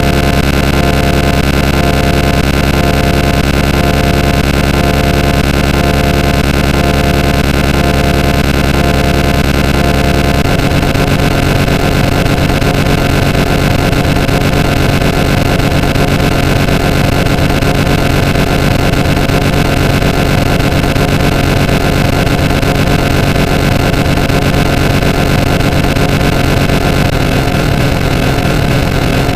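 Loud, dense pile of layered sound effects holding several steady tones at once over a rough noise, with an abrupt change in the mix about ten seconds in.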